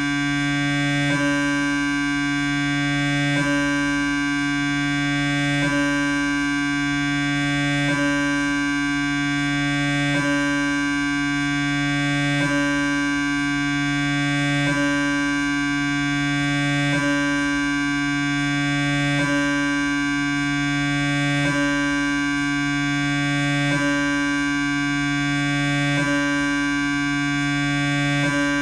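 Siemens MAGNETOM Lumina 3 T MRI scanner's gradient coils running a T1-weighted transverse 3D VIBE gradient echo sequence with 1 mm slices: a loud, steady buzz of several pitches at once, with a small click and swell about every two seconds.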